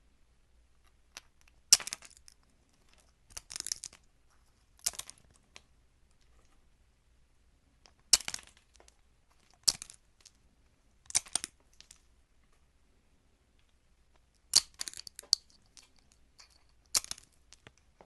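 Crisp crackling crunches in about ten short bursts, each under a second, spaced irregularly with quiet between them.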